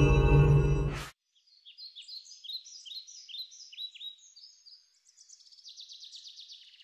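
A loud ringing, gong-like musical tone with a deep hum cuts off suddenly about a second in. After it, a songbird sings a run of quick, repeated descending notes, then a rapid trill.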